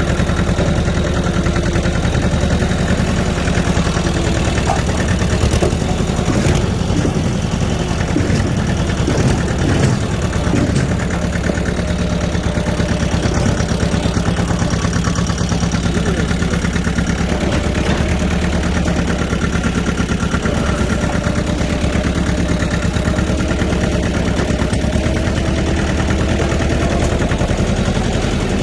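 Tractor engine running steadily at a constant pace.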